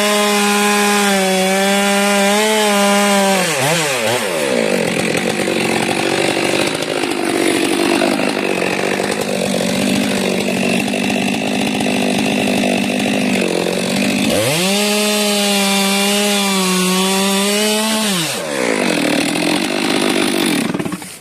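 Stihl chainsaw cutting frangipani wood. It revs high and steady, then drops to a rougher, lower sound for about ten seconds as the chain bites into the trunk under load. It revs free again and falls away sharply near the end.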